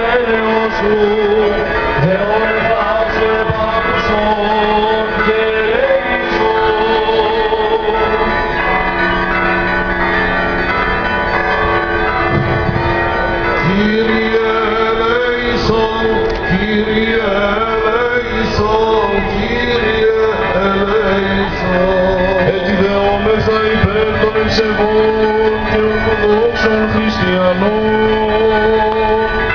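Greek Orthodox Byzantine chant sung by a male voice into a microphone and amplified, the melody wavering over steady held tones beneath.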